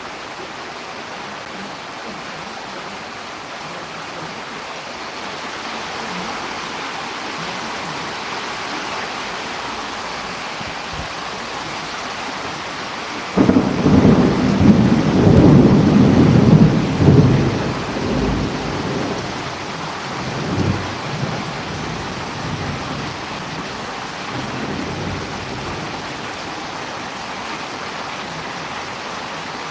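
Steady rain during a thunderstorm; about 13 seconds in a clap of thunder breaks in suddenly and rumbles for about five seconds, fading away in a few weaker rolls.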